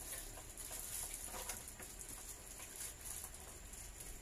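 Handling noise from a welding machine's ground clamp and cables being unpacked: scattered light clicks and rustling as the clamp and coiled cable are moved about.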